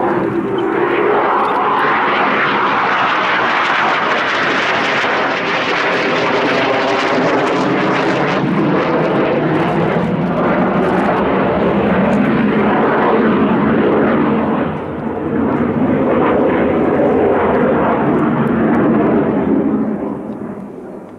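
Yakovlev Yak-130's twin turbofan engines heard from the ground as the jet flies its aerobatic display: a loud, steady jet rush that dips briefly about two-thirds of the way through and fades away near the end.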